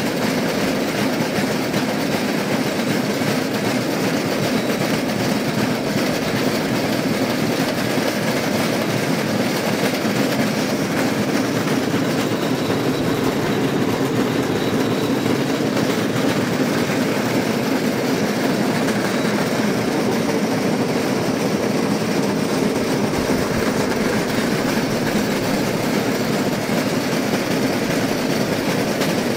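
Rail vehicle running steadily along the track, its wheels on the rails giving a continuous, even rolling noise.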